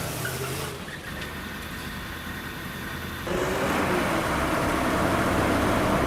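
Car and street noise: a quieter stretch, then from about three seconds in a louder, steady rushing noise.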